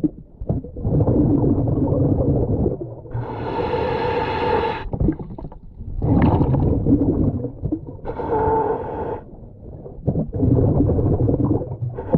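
Scuba diver breathing through a regulator underwater, in a slow cycle: a pitched, humming inhale alternating with bubbling exhales.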